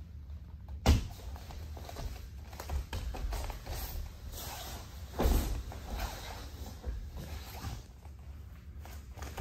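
Two grapplers in gis moving on training mats: fabric rustling and bare feet shuffling, with a sharp thump about a second in and another heavy thump a little past five seconds.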